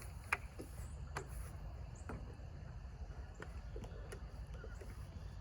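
A few scattered light clicks and taps, the loudest about a third of a second in, over a low steady rumble.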